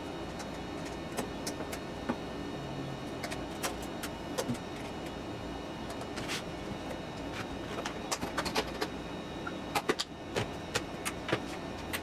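Scattered small clicks and taps, thickest in the second half, over a steady low hum.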